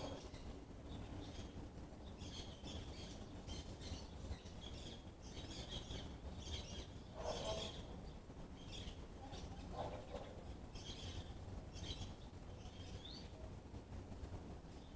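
Violaceous euphonias giving short, high chirping calls in irregular clusters about every second, with a couple of lower notes about halfway through.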